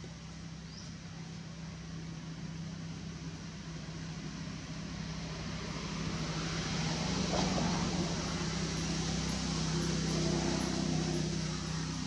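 A motor vehicle's engine hum that grows louder about halfway through and eases off near the end.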